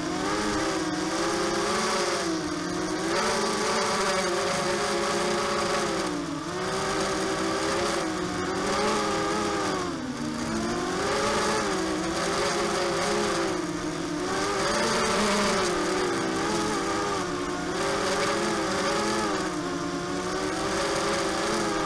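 Four brushless motors and propellers of a ZMR250 mini quadcopter (DYS BE1806 motors) whining, the pitch rising and falling with each throttle change, heard close up from a camera mounted on the frame.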